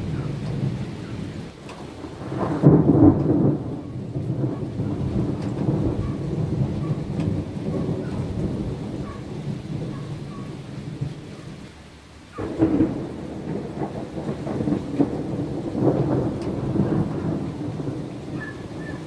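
Thunder rumbling over steady rain in a strong thunderstorm. It swells loudly about three seconds in, starts suddenly again about twelve seconds in, and comes once more near the end.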